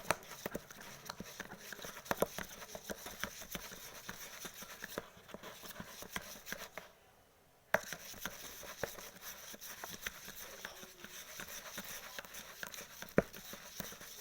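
Glue slime with activator being mixed, making many small irregular sticky clicks and squelches as the mixture starts to set; it pauses for about a second midway.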